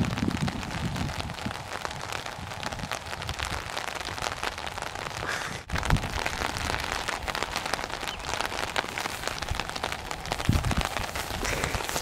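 Steady crackling noise on the camera microphone, a dense patter of tiny ticks with some low rumbles, broken off briefly about halfway through.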